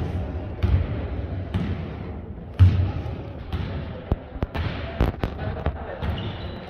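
A basketball being dribbled on the hard floor of a large indoor gym, low thuds about once a second, with a few sharp knocks and clicks around the court near the middle.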